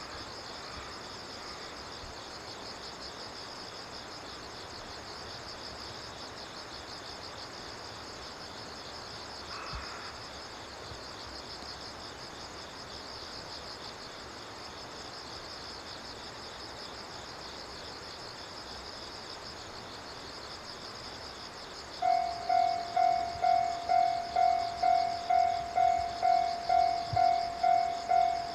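Steady chirring of insects. About 22 seconds in, a Japanese railway level-crossing warning bell starts, ringing its loud, even 'kan-kan' tone about three times every two seconds.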